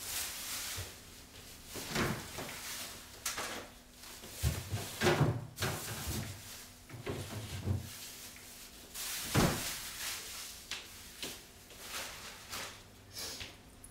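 Refrigerator door and drawer opening and closing, with irregular knocks and rustling as produce is put away; the sharpest knock comes about nine seconds in.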